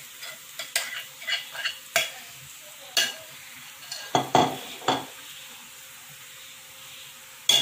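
Wooden spatula scraping and knocking against a non-stick frying pan while mashed boiled potatoes are stirred into a hot oil-and-spice tempering that sizzles underneath. A quick run of scrapes and taps over the first five seconds, then only the low sizzle, with one more sharp knock near the end.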